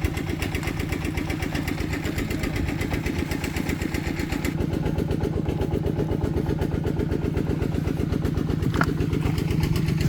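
A small engine running steadily with a fast, even pulse. There is a brief high chirp about nine seconds in.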